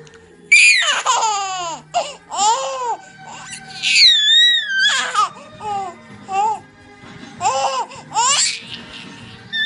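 A five-month-old baby squealing and laughing in a string of short, high-pitched bursts whose pitch swoops up and down, over background music.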